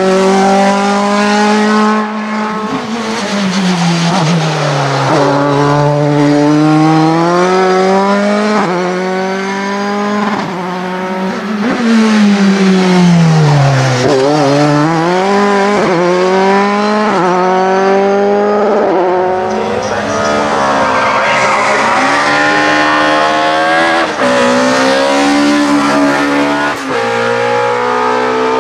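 Race car engines at full throttle, one car after another, the pitch climbing and then dropping sharply at each gear change, with swoops down and back up as a car brakes and accelerates again.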